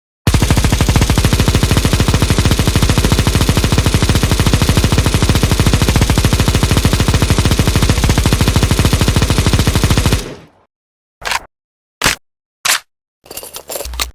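IWI Negev light machine gun sound effect firing one long, unbroken burst of rapid automatic fire for about ten seconds, then stopping abruptly. Three separate sharp clicks and a short rattle follow near the end.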